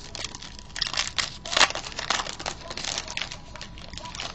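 Foil trading-card pack wrapper crinkling as it is torn open and handled, an irregular run of crackles with the loudest about a second and a half in.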